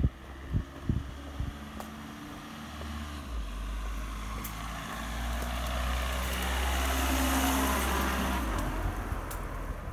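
A vehicle drives past, its engine rumble and tyre noise swelling to a peak about seven seconds in and then fading away.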